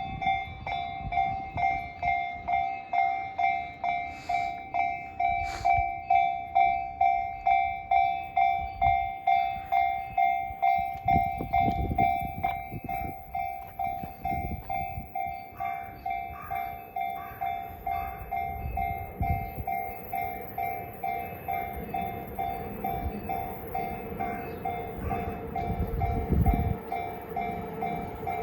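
Japanese level-crossing warning bell ringing steadily, about two strikes a second, with trains rumbling past through the second half. A second, lower tone joins the ringing after about twenty seconds.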